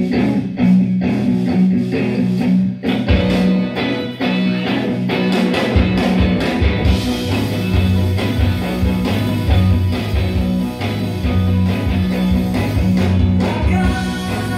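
A live rock band playing without vocals: electric guitars over drums, with low bass notes joining strongly about six seconds in.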